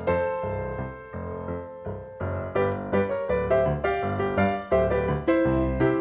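Background music: a solo piano tune with a regular beat, the notes struck in quick succession.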